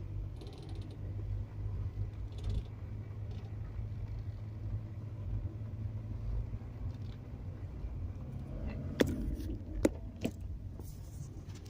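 VW Touran's front suspension creaking as the steering is turned at a standstill, with two sharp knocks about nine and ten seconds in, over the steady low hum of the car. The owner asks whether a strut mount or sway bar link is the cause.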